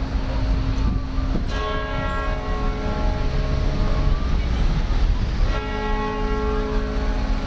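A large church bell tolling slowly: two strokes about four seconds apart, each ringing on for over a second, over a steady low rumble of city traffic.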